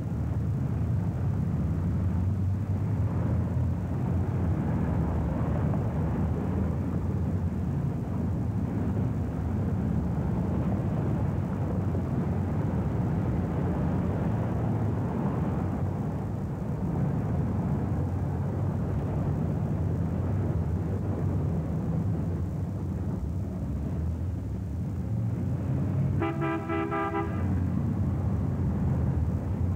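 Steady traffic noise from cars on a busy city boulevard, heard through a lo-fi early reel-to-reel videotape recording. Near the end a car horn honks once for about a second and a half.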